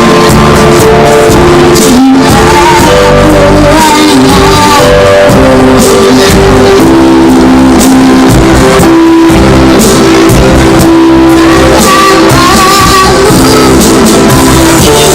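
A child solo singer singing held, gliding notes over loud music accompaniment.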